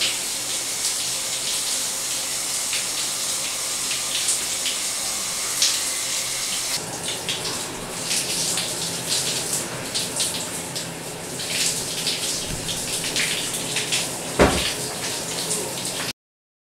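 Rain shower head running, water spraying steadily and splashing over a person's face and head. A brief thump about fourteen and a half seconds in; the water sound cuts off suddenly just before the end.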